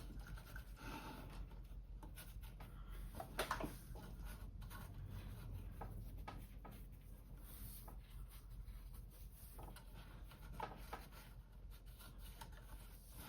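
Faint handling sounds at a workbench: scattered light clicks and short rubbing noises over a low steady hum.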